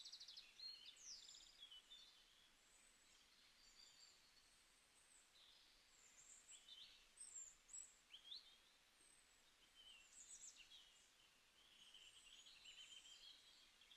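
Faint birdsong: many small birds chirping, with quick trills and short rising and falling notes, over a low background hiss.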